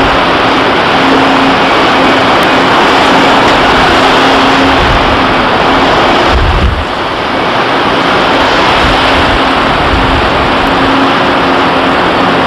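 Loud steady rush of wind buffeting the microphone and sea water churning along the hulls of two ships underway close alongside, with a low rumble and a faint low hum that comes and goes. The sound dips briefly about six and a half seconds in.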